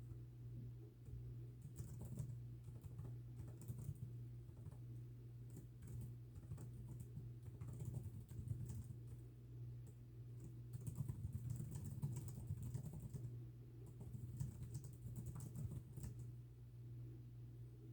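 Steady, fast typing on a computer keyboard: a dense run of irregular key clicks. A steady low hum sits underneath.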